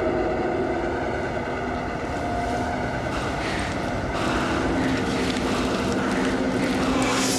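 Sustained synthesizer drone score: held notes over a steady rumbling hum, the notes shifting about four seconds in, with two brief hissing swells.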